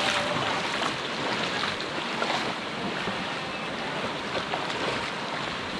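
Steady rushing of flowing water in a rocky hill stream, an even wash of sound with a few faint ticks.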